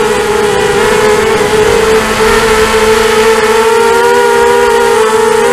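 Small quadcopter's brushless motors and propellers whining loudly as heard from its onboard camera, the pitch wavering with throttle and dipping slightly about four seconds in, over rushing air noise.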